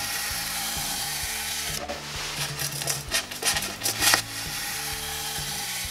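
Utility knife blade scoring a sheet of XPS foam insulation board: a dry, scratchy rasp as the blade is drawn along the cut line in repeated passes. There is a long stroke at the start, shorter scrapes in the middle, and another long stroke from about four seconds in.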